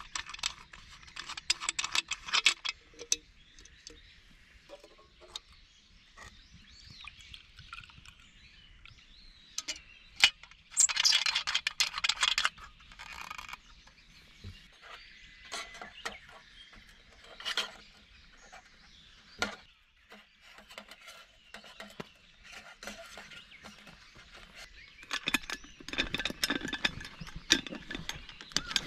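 Small metal camp cookware and stove parts being handled, with scattered light clinks and knocks. About a third of the way in there is a brief rush of noise lasting a second or two.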